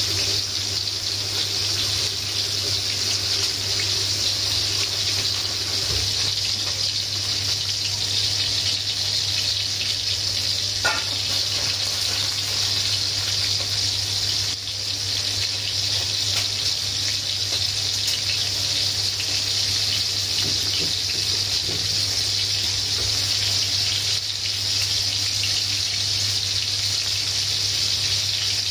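Breaded pork chops sizzling steadily in hot oil in a frying pan, an even high hiss with a steady low hum underneath.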